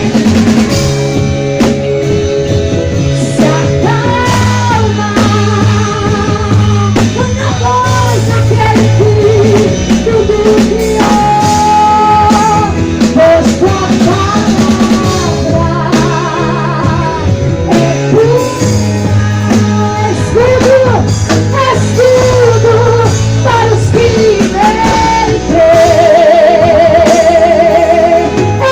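Live worship band playing: a sung melody with vibrato over drum kit, bass and guitar, loud throughout.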